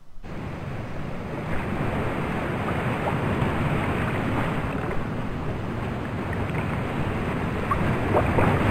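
Ocean surf washing on a beach, a steady rushing noise. It fades back in just after the start, then slowly grows louder.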